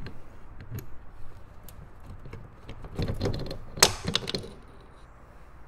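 Metal-on-metal clicks and clinks as the shift-fork pins and forks are worked loose from a Honda CR85 engine's transmission case, in a cluster of clicks a few seconds in with one sharp clack at its loudest.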